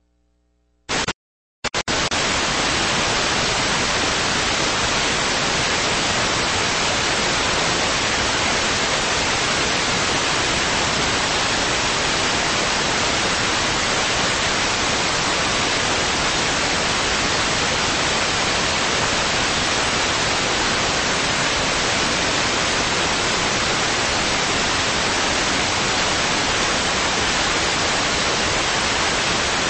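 Electronic static: a loud, steady hiss with no tone in it, which comes on suddenly about a second and a half in after a faint hum and a short burst. It is the sound of the audio feed carrying no signal once the meeting recording is shut off.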